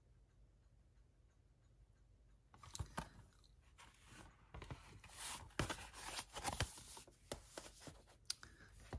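Plastic Blu-ray keep case and cardboard slipcover being handled: after a quiet start, a run of clicks, crackles and scrapes begins about three seconds in.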